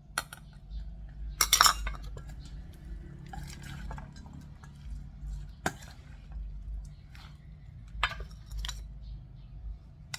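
A spoon clinking and knocking against a mixing bowl at irregular moments while a pork liver salad is mixed, the loudest knock about one and a half seconds in.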